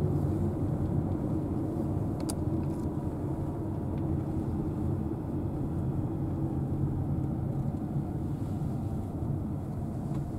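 Steady low road and engine rumble of a car driving at moderate speed, heard from inside the cabin, with a couple of faint clicks.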